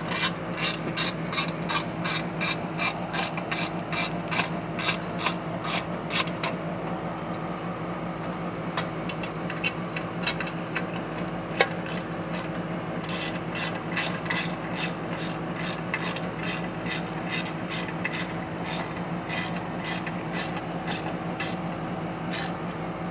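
Ratchet wrench clicking steadily, about four clicks a second, as it tightens concrete anchor bolts. The clicking stops for several seconds after about six seconds, with only a few single clicks, then resumes.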